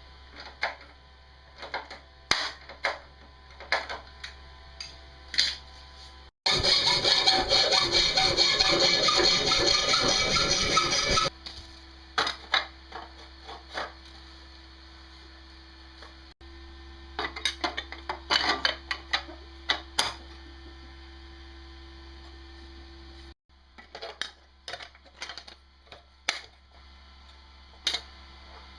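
A string of short workshop clips: scattered clicks and knocks of parts being handled, then about five seconds of loud, noisy power-tool or machine running starting around six seconds in, followed by a steady hum under more clicking.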